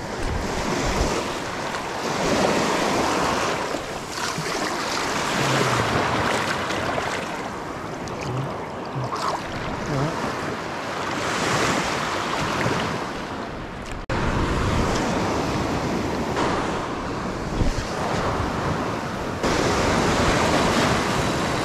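Small ocean waves breaking and washing up a sandy beach, the surf swelling and fading every few seconds.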